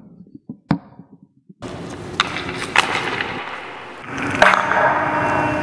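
Ice hockey on a rink: ice skates scraping and carving on the ice, with sharp cracks of stick on puck, after a few light knocks at the start.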